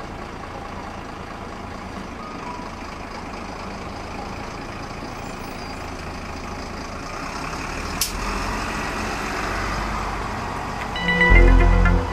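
A city route bus's engine running as the bus pulls away and turns the corner, getting louder after a sharp click about eight seconds in. Near the end a short, loud low rumble comes with a few beeping tones.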